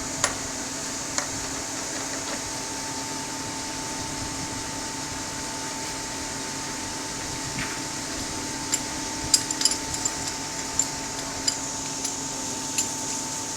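A workshop machine runs with a steady, even hum while metal is struck a few times with sharp taps. The taps come singly near the start and then in a quick cluster in the second half.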